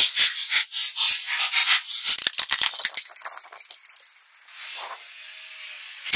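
Clear plastic maze-puzzle balls cracking and crunching under a car tyre: a dense run of sharp cracks and crackles for about three seconds, thinning out and giving way to a fainter hiss.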